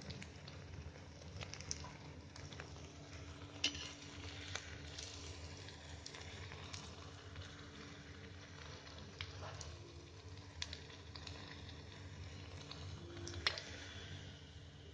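Rice-flour onion-cucumber vada frying in hot oil in a kadhai: a faint, steady sizzle, broken by a few sharp clicks, the loudest near the end.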